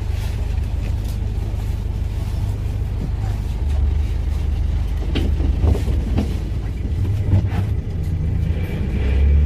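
Hyundai County LWB midibus heard from inside the cabin while it moves: a low diesel engine drone with road rumble, getting heavier about four seconds in and again near the end, with a few brief clicks and rattles.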